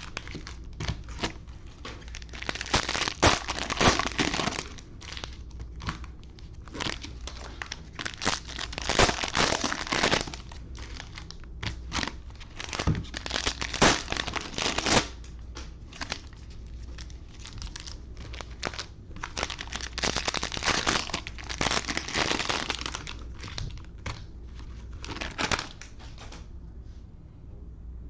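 Cellophane wrappers of Panini Prizm football cello packs crinkling and tearing as the packs are opened by hand, in irregular bursts. The crinkling dies away shortly before the end.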